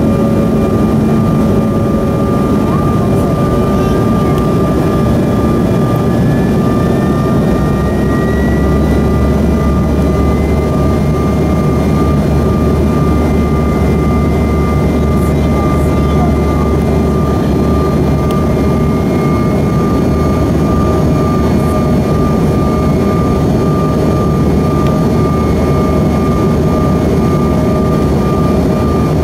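Cabin noise of a Bombardier CRJ-700 airliner in flight, heard from a rear window seat near its two tail-mounted GE CF34 turbofan engines: a loud steady rumble with several steady whining tones. One whine rises in pitch from about four to ten seconds in, and the low rumble gets stronger at about the same time.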